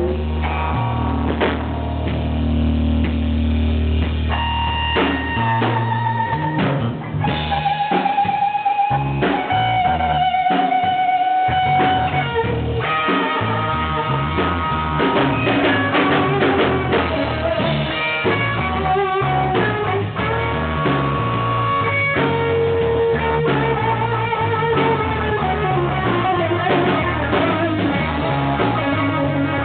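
Blues trio playing: electric guitar taking single held notes, some bent in pitch, over bass guitar and drum kit.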